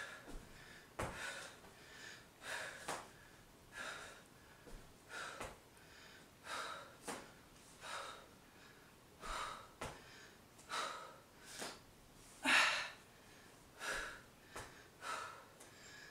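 A woman breathing hard from exertion while holding a plank and rowing a dumbbell: quick breaths in and out, about a pair every second and a half, with one louder breath about three-quarters of the way through.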